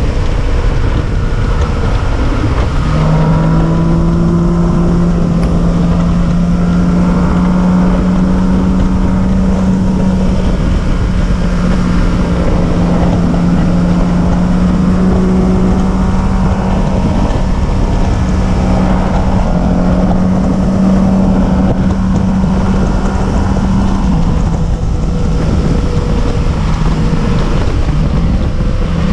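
A motor vehicle's engine droning steadily under heavy wind and road rumble while driving. The engine note steps up slightly about ten seconds in and drops back about twenty-four seconds in.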